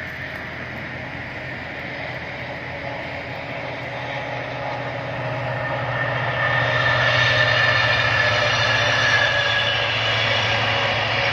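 A pair of diesel locomotives hauling a passenger train approaches, its engine drone growing louder from about halfway through. A high steady whine rides over it in the second half.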